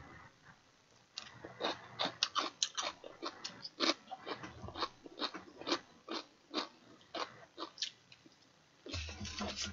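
Close-miked eating: wet chewing and lip-smacking clicks, several a second, with a short murmur near the end.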